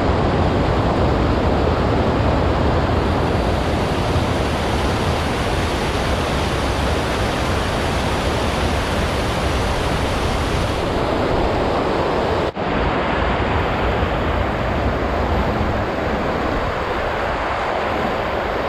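Shallow river water rushing steadily over a concrete spillway apron close to the microphone, with a momentary break about twelve and a half seconds in.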